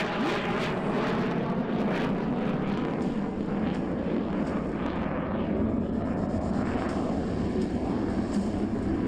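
Turkish Air Force F-16C fighter jet's single turbofan engine, a steady jet rumble as the jet manoeuvres overhead.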